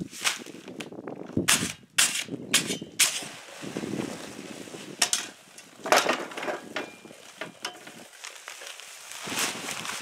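A stiff paper sack of dry concrete mix handled and emptied into a post hole: irregular sharp crackles and rustles of the paper bag, with the dry mix sliding and pattering into the wet hole.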